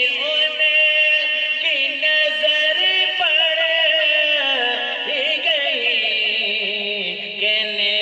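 Devotional naat singing: a voice holding long, ornamented notes that slide between pitches, over a steady low drone.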